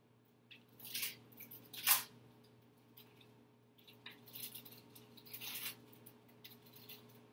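Papers rustling and a pen scratching on paper: a string of short, scratchy rustles, the loudest about two seconds in, over a faint steady hum.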